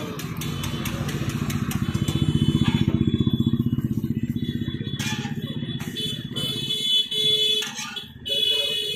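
A motorcycle engine running close by, its low rapid pulsing growing louder over the first two or three seconds and fading out about six seconds in. Later come two short metal clatters of a spatula on the iron griddle.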